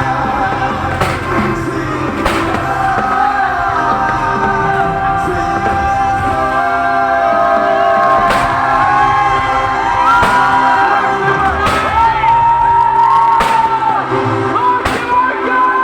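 A pop song with a singing voice plays loudly throughout, while fireworks go off with about seven sharp bangs at irregular intervals.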